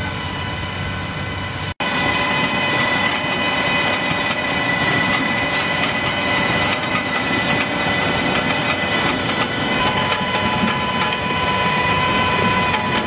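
Tractor-drawn Grimme potato planter at work: steady mechanical running with whining tones and rattling. After a brief break about two seconds in, rapid irregular clicking joins as the cup belt carries seed potatoes up to the planting chute.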